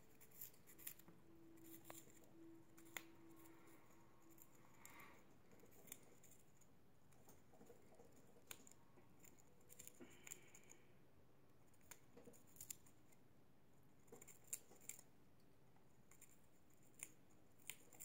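Faint, scattered sharp clicks and snips of budgerigars' beaks nibbling at balsa wood.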